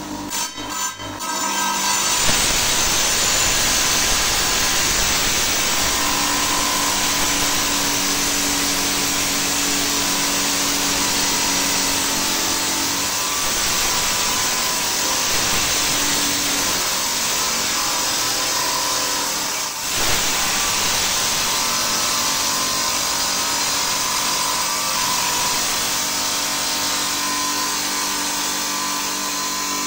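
Stone-cutting saw slicing through agate. The motor is running, and about two seconds in the blade bites into the stone, giving a steady cutting noise that dips briefly about twenty seconds in.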